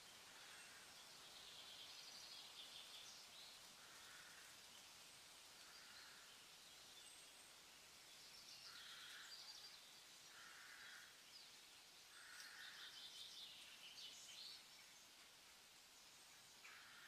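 Faint outdoor ambience of birds: spells of high chirping and trilling, with a short lower call repeating about every two seconds over a steady hiss.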